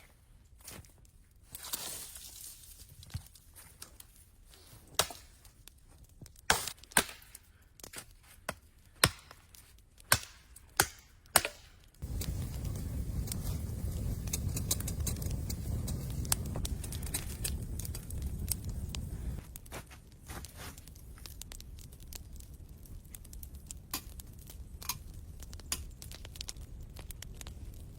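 Wood being chopped: about ten sharp strikes at uneven intervals. About twelve seconds in it cuts to a steady low rumble with scattered small crackles.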